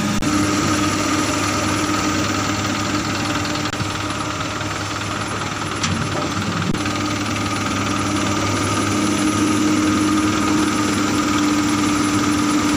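Komatsu PC200 hydraulic excavator's diesel engine running steadily under working load while it loads soil into a dump truck. A short sharp knock about six seconds in, as a bucketload of soil drops into the steel truck bed.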